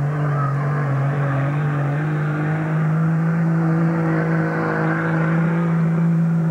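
Pickup truck engine running hard at steady high revs as it pulls a weight-transfer sled down a truck-pulling track.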